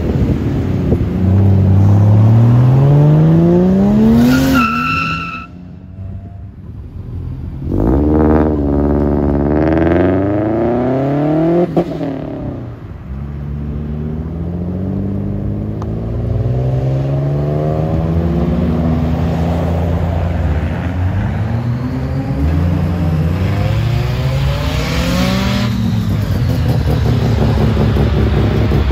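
Several cars accelerating away one after another, each engine revving up with a rising pitch as it pulls through the gears. A brief high squeal comes about five seconds in, and a single sharp crack about twelve seconds in.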